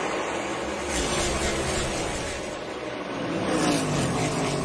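A field of NASCAR Cup stock cars at full throttle as the pack accelerates away from the green-flag start, their V8 engines running together. The sound swells about a second in and again near the end as cars pass close by.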